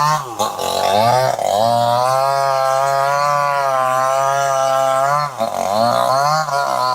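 Two-stroke chainsaw engine running at high revs, its pitch dropping sharply and recovering about half a second in and again after about five seconds, holding steady in between and wavering near the end.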